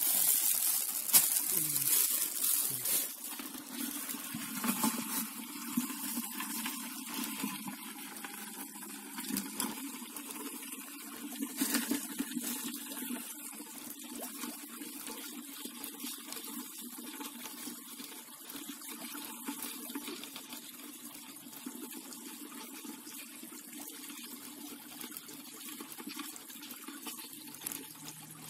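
Hands splashing and churning in a shallow muddy water channel while feeling for crabs, loudest and choppiest in the first three seconds. After that comes a steady sound of running water.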